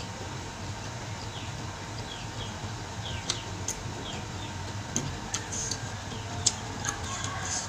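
Small, sharp, wet clicks of eating by hand: chewing and fingers picking rice off a plate. Short falling bird chirps sound over a low steady hum.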